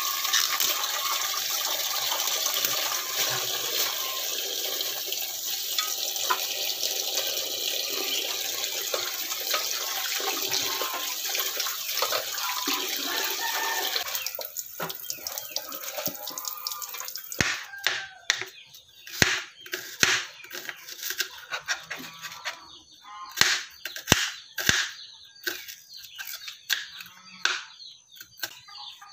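Water running from a tap into a sink as a steady rush, which stops about halfway through. A series of sharp clicks and knocks follows.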